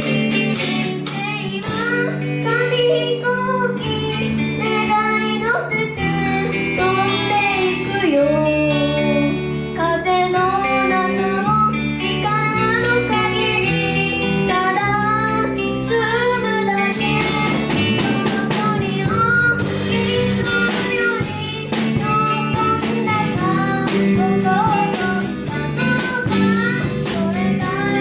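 A band playing a J-pop song, with a child singing lead over guitar and drums; the drum and cymbal hits grow busier about halfway through.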